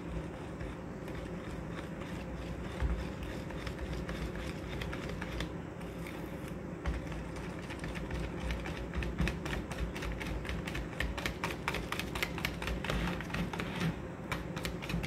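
Wire whisk beating sweetened condensed milk and water in a bowl: a fast run of light clicks as the wires strike the bowl, sparse at first and much busier through the second half.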